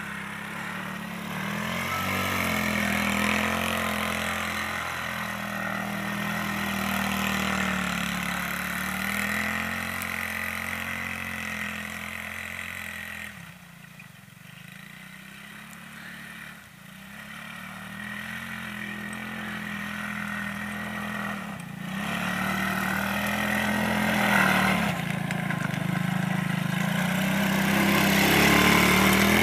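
Quad (ATV) engine revving up and down as it slides around in the snow. It drops away and gets quieter about halfway through as the quad moves off, then grows loud again near the end as it comes close.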